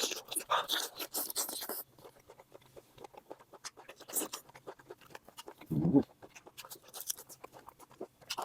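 Person eating: chewing with small wet clicks and crackles, and one short low thump about six seconds in.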